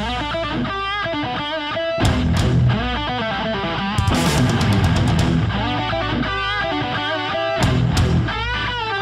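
Rock outro music: an electric guitar lead with bending, wavering notes over bass and drums, with sharp drum or cymbal hits about two seconds in, about four seconds in and near the end.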